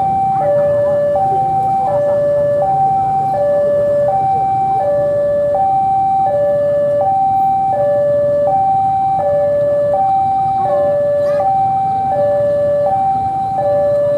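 Two-tone electronic warning alarm alternating steadily between a high and a low note, each held about three-quarters of a second. Underneath it is the low running of a diesel locomotive moving slowly toward the platform.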